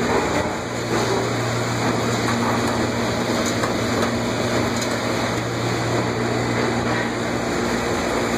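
Champion commercial dish machine running with empty racks: a steady hiss of water spray over a low, even motor and pump hum.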